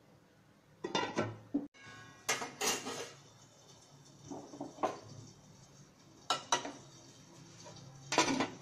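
Steel cookware clattering: a metal ladle knocking and scraping in a steel cooking pot and a steel lid clanking on the pot, as a run of separate knocks with the loudest near the end.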